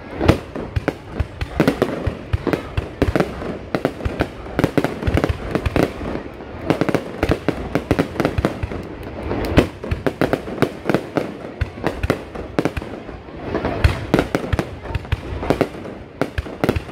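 Aerial fireworks display: a dense, irregular barrage of loud bangs as many shells burst in quick succession.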